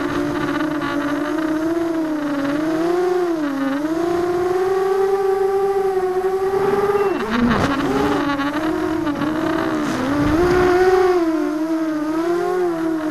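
Brushless motors and propellers of a ZMR250 racing quadcopter whining from on board, the pitch rising and dipping as the throttle changes. About seven seconds in the pitch drops sharply, then climbs back.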